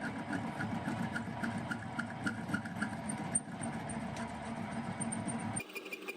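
A workshop machine running steadily with a regular ticking. About five and a half seconds in it cuts abruptly to a quieter, different machine sound with a steady high whine.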